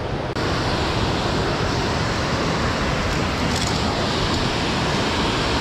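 Steady rushing noise of a river's small waterfalls and cascades, an even roar of water.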